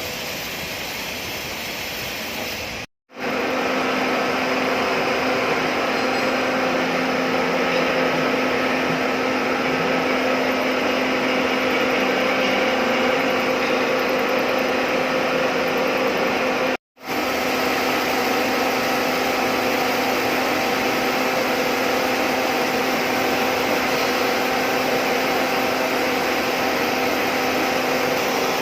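CNC milling machine running and cutting metal, a steady whine over a hiss. It cuts out abruptly for a moment twice, and is a little louder after the first break.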